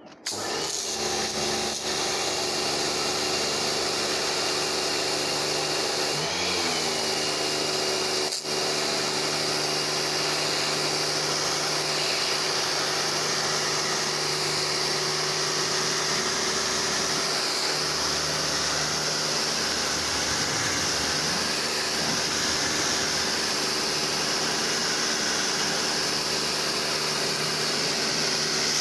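Pressure washer switching on and running steadily: a motor hum under the loud hiss of the water jet.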